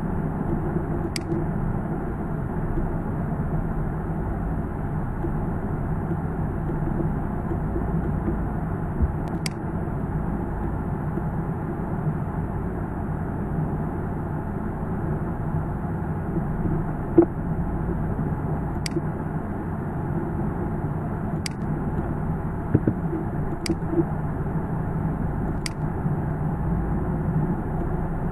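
Steady low background rumble and hiss, with a faint sharp click every few seconds.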